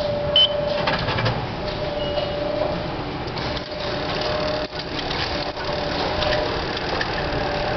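Train station ambience: a steady mechanical hum with a held tone, scattered clicks and a short high beep about half a second in.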